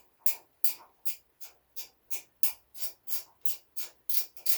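A 3/8-inch ratchet clicking as it is swung back and forth to turn a bolt out, about three quick strokes a second.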